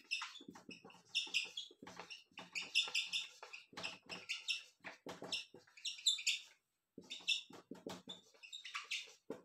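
Whiteboard marker squeaking and tapping as words are written on a whiteboard: a quick, irregular run of short high squeaks with light taps between strokes.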